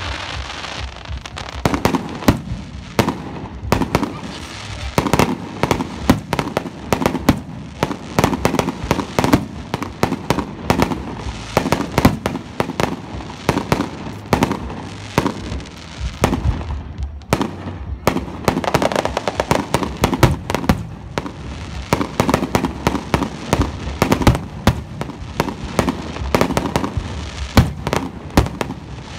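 A fireworks display: aerial shells bursting in quick succession, with a continuous stream of overlapping sharp bangs and crackle.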